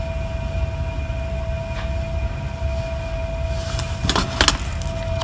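Steady low room rumble with a faint constant hum. About four seconds in, two light clicks as the hot glue gun touches the metal tray.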